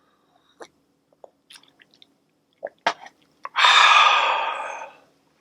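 Crunchy nori tempura (seaweed tempura snack) being chewed in small, scattered crunches. About three and a half seconds in comes a loud, breathy exhale that fades away over about a second and a half.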